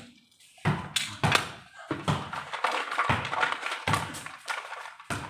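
A light ball being hit back and forth by hand in a room: a string of about seven irregular taps and thuds with a short room echo after each.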